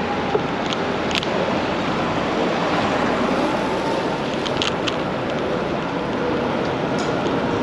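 Steady rush of wind on the microphone mixed with street traffic, with a few brief light clicks.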